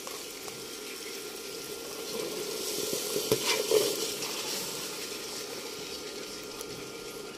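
Onion-tomato masala frying in a pot sizzling steadily. It grows louder around the middle as boiled white chickpeas are tipped in, with a couple of light knocks.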